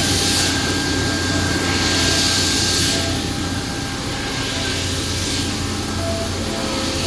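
Steady running noise of CNC machines in a machining workshop: a low hum with a hiss that swells twice and fades.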